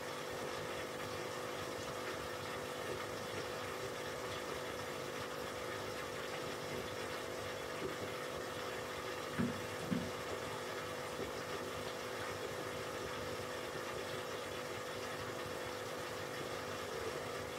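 Aquarium air pump and filter running: a steady hum under an even hiss of bubbling water. About halfway through come two soft low thumps, half a second apart.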